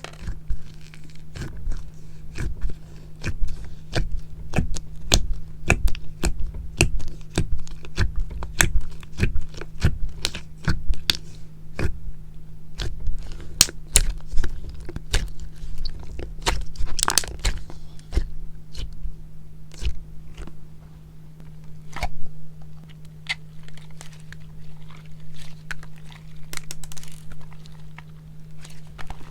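Elmer's-glue slime being squeezed and poked by hand, giving many quick clicks and pops, thick and fast for most of the time and thinning out toward the end. A steady low hum runs underneath.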